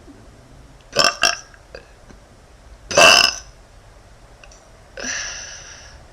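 A young woman burping: two short burps close together, a louder burp about three seconds in, and a longer drawn-out burp near the end that fades away.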